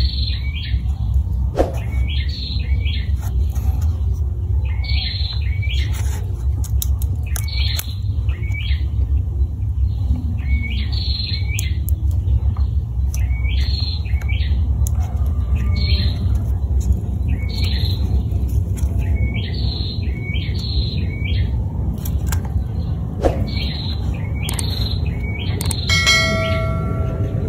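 A bird chirping, repeating a short high call, often in pairs, about once a second, over a steady low rumble. A bell-like chime rings near the end.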